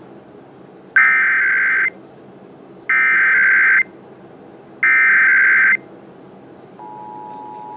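Emergency Alert System SAME header: three shrill digital data bursts, each just under a second long and about a second apart, then the steady two-tone EAS attention signal starting near the end, which opens an alert message.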